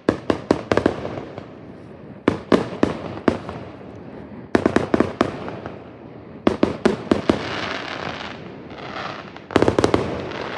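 Fireworks going off: clusters of sharp bangs every couple of seconds, with crackling between the volleys.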